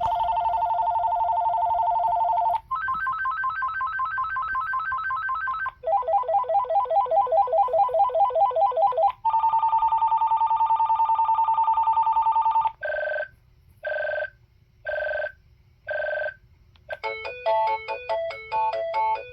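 A modern DECT 6.0 cordless phone handset previewing its ringtones one after another, each for about three seconds: several different electronic warbling trills, then four short beeps, then a melody near the end.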